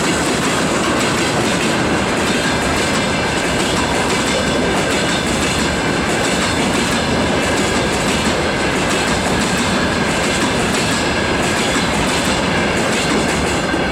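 Freight train rolling past at close range: a loud, steady rumble and clatter of wheels on rail, with a faint high whine running through it.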